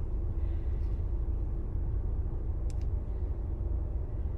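Steady low rumble of a car's cabin, with a faint click a little over halfway through.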